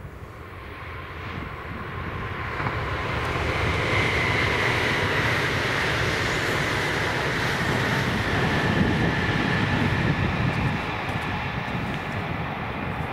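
A vehicle passing: a low rumble swells over the first few seconds and holds, easing off near the end, with a faint whine that slowly falls in pitch.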